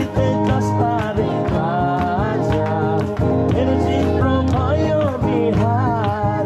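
Music: a Nepali Christian worship song with guitar and a steady beat.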